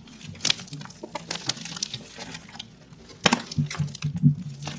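Homemade glue slime squished and pulled by hand close to the microphone, making sticky clicks and crackles. The sharpest snaps come about half a second in and in a cluster near the end.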